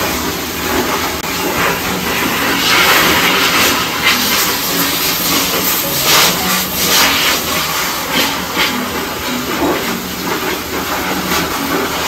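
High-velocity pet dryer blowing air through its hose nozzle onto a damp Labrador retriever's coat: a loud, steady hiss that swells and falls several times as the nozzle moves over the fur.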